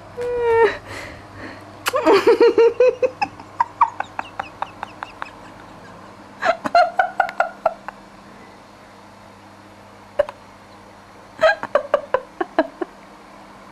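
Short spells of a high-pitched voice broken into quick pulses, tailing off each time, in a small room.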